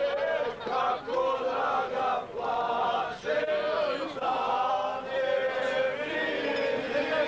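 A group of people singing together, holding long notes in phrases of about a second each with short breaks between them.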